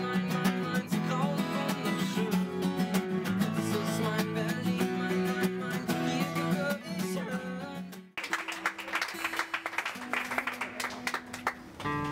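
Cutaway steel-string acoustic guitar strummed in full chords. About eight seconds in, the strumming breaks off abruptly and gives way to quieter, sparser held notes, with chords returning near the end.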